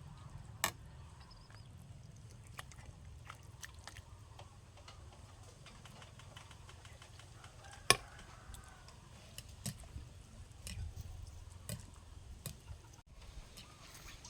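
Scattered light clicks and taps over a low rumble, with two sharper knocks, about a second in and about eight seconds in.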